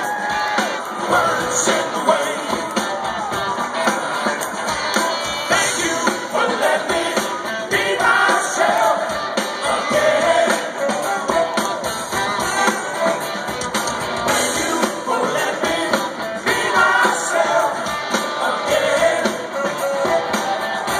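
Live rock band playing loud amplified music with drums, electric guitars and a lead singer, heard over the PA from within the audience.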